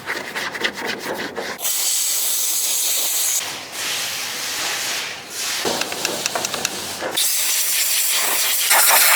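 Pressurised cleaning jet hissing in several long bursts, each one to two seconds, as removed engine timing parts are cleaned. Rapid scraping and clicking comes first.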